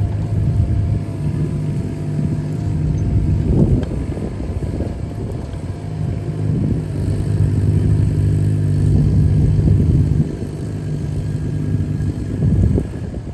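Carter CT12BU mini excavator's Yanmar diesel engine running under working load, its note dipping and picking up again as the hydraulics are worked. A couple of short knocks come through, about four seconds in and near the end.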